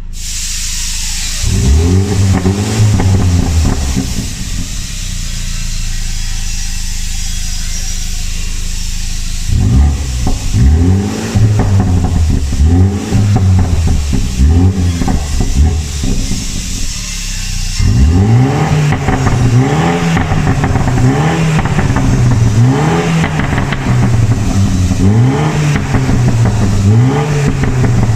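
2020 BMW M135i's turbocharged four-cylinder engine revved again and again, its pitch sweeping up and falling back with each blip of the throttle, and running steadily between bursts. Pops and crackles come from the exhaust as the revs drop.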